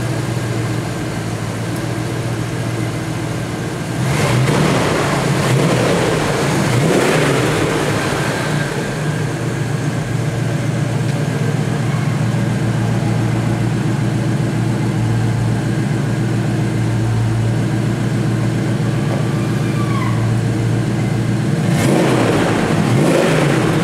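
1970 Dodge Challenger R/T convertible's V8 idling steadily, blipped up briefly about four seconds in, again around seven seconds, and once more near the end.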